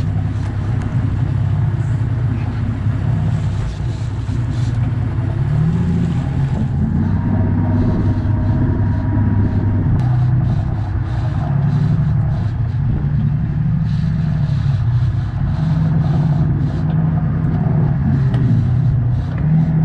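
Sportfishing boat's inboard engines running under way during a marlin fight, a steady rumble whose note swells a few times, with wind and sea hiss.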